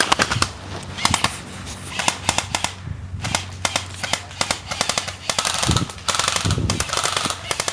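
Airsoft guns firing in short bursts of rapid, sharp cracks.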